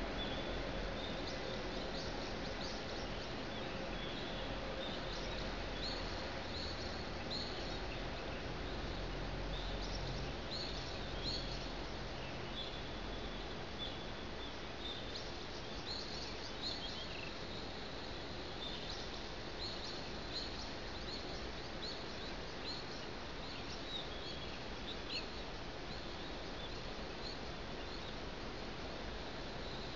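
Small birds chirping, many short high chirps that come thick at first and thin out in the second half, over a steady distant city hum.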